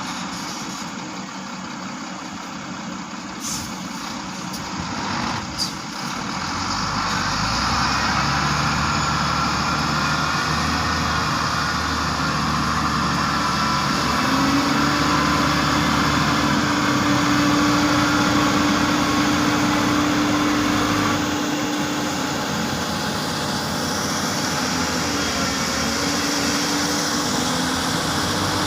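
Heavy diesel engine of a Hyundai 330LC-9S excavator running under load as it works. The sound gets louder about seven seconds in, and a steady whine comes in about halfway through, drops out, then returns near the end.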